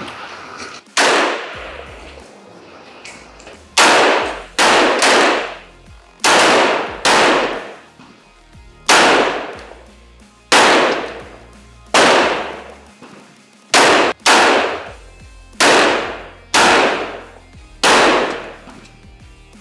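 AK-pattern rifle fired in single shots at a range: about fifteen sharp cracks at irregular intervals, sometimes two close together. Each crack rings briefly off the covered firing line.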